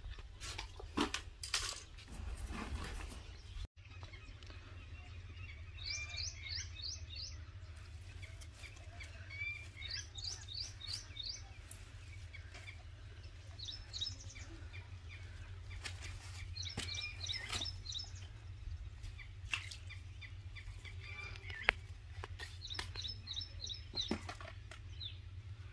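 A bird calling repeatedly, each call a quick run of five or six high chirps, coming every few seconds, over a low steady rumble with occasional sharp clicks and knocks.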